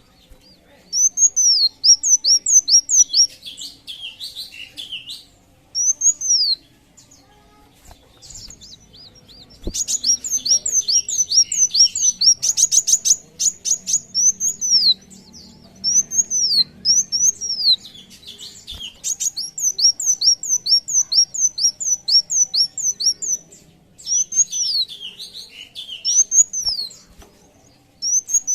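A sunbird singing: bursts of rapid, high, arched chirps repeated in quick series, with short pauses between phrases and a brief buzzy trill partway through.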